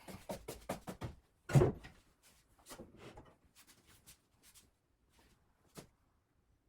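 Wooden workbench parts being handled: a run of light knocks and clicks, with one louder thump about a second and a half in and a last sharp click near the end.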